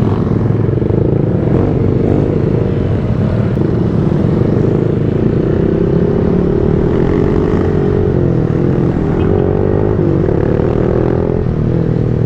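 Motorcycle engine running through an open VMAX aftermarket muffler while riding, a steady loud drone whose pitch rises slowly and wavers through the middle stretch.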